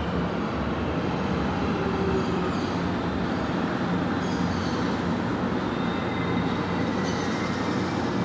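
Electric commuter train running along the tracks: a steady rumble with faint high-pitched squeals now and then.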